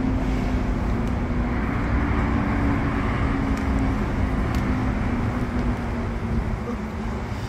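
Steady city road traffic with tyres on a wet road, and a low engine hum that fades out about six seconds in.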